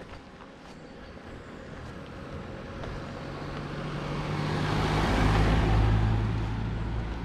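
A car approaching along the road and passing close by: tyre noise and a low engine hum swell steadily to a peak about five to six seconds in, then begin to fade.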